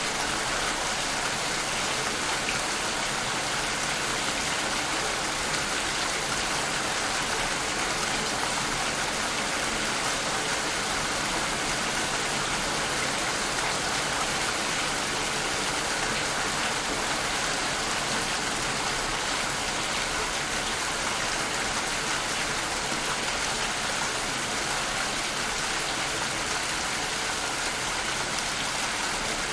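Steady rain falling: an even hiss of drops that does not let up.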